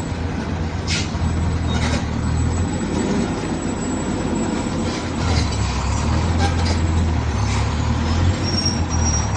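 Large truck engine running with a steady low rumble, with a few clicks and rattles over it.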